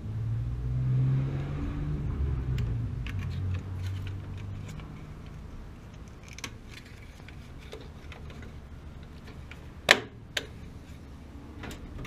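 A motor vehicle's engine rumbling low, wavering in pitch and fading out about five seconds in. After it come light clicks and taps of hands working wires at a water heater's gas control valve, with two sharp clicks near the end, the loudest sounds.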